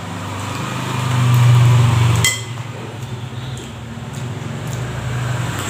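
A metal spoon clinks sharply against a ceramic plate once about two seconds in, followed by a few lighter taps, over a steady low hum that cuts off at the clink.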